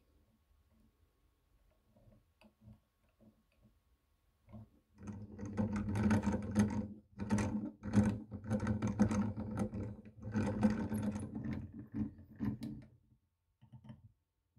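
Dazey Sharpit hand-cranked knife grinder's freshly greased gear train whirring as the crank is turned, in a few spells of a couple of seconds each with short breaks, starting about five seconds in. Faint clicks come before it.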